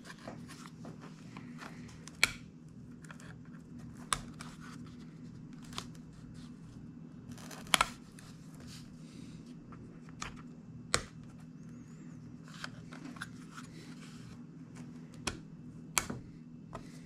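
A plastic pry tool working around a tablet screen's edge, with scattered sharp clicks and snaps as the plastic trim clips give way one by one, over a steady low hum.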